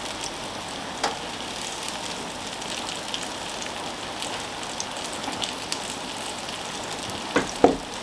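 Buttered field mushrooms topped with melted cheese sizzling on a hot Ninja electric grill plate: a steady hiss with fine crackles. A small knock about a second in and two sharper knocks near the end.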